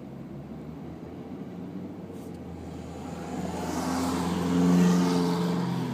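Car engine and road noise heard from inside the moving car's cabin: a steady low hum that swells about three seconds in to a louder peak near the five-second mark, then eases slightly.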